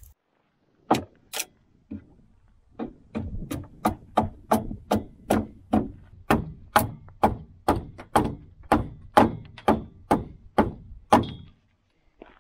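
Two single chopping strikes, then a steady run of about twenty quick chopping strikes into a wooden pole, two or three a second, shaping the end of a homemade tamping stick.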